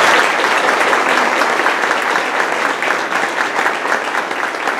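Audience applauding: a steady round of clapping from many hands, easing slightly toward the end.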